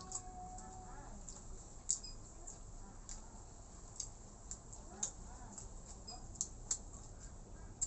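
Close-up eating sounds: irregular sharp clicks and smacks of chewing and of a utensil against the dish. A faint, drawn-out pitched sound is heard at the start and again about five seconds in.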